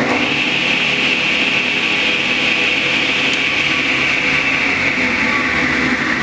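Delta Unisaw repulsion-induction bullet motor running steadily at speed after a quick start, a loud hiss with a high whine that slowly sinks in pitch. There is no growling or struggling: the brush ring has been re-set and the shorting-necklace spring tightened all the way around.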